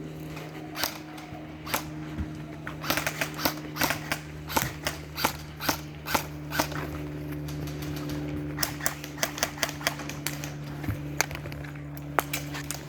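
Airsoft guns firing: sharp snapping shots, single and in quick runs of several a second, over a steady low hum.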